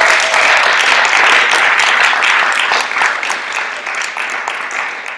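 Audience applause: many hands clapping densely, tapering off near the end.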